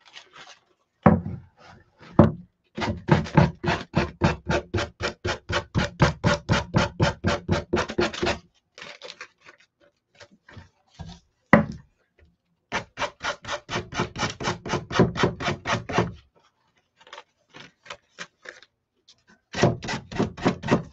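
Sanding block rubbed rapidly back and forth, about five strokes a second, to sand excess decoupage paper off the edge of a stained pine cut-out. There are two long runs of strokes and a shorter one near the end, with a single knock in between.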